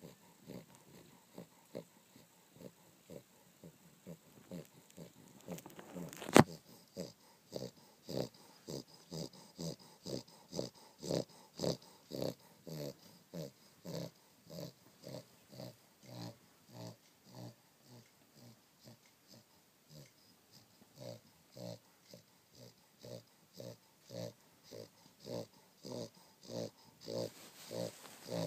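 French bulldog snoring in its sleep: short, rhythmic wheezing snores, about two a second. A single sharp click sounds about six seconds in.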